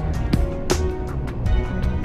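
Instrumental background music: held notes over a low bass, with sharp percussive hits.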